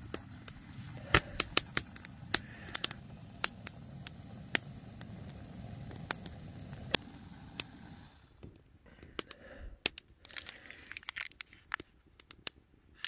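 Backpacking canister gas stove running under a lidded pot with a steady low rushing sound, scattered sharp ticks over it, until it drops away about two-thirds of the way in. Near the end, quieter clicks and the crinkle of a paper drink packet being handled.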